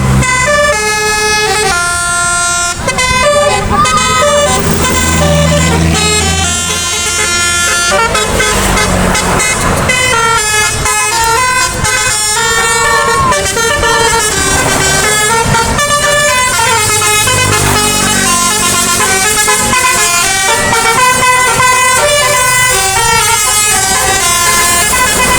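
Bus telolet musical air horn playing a fast melody, its notes changing several times a second, with the bus's engine running low underneath.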